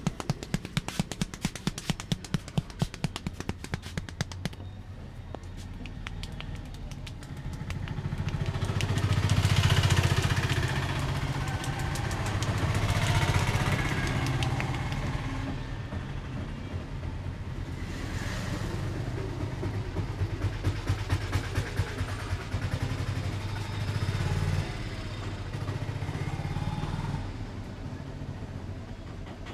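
A quick run of sharp taps for about the first four seconds, then motor traffic going by, several vehicles passing one after another and swelling louder and fading.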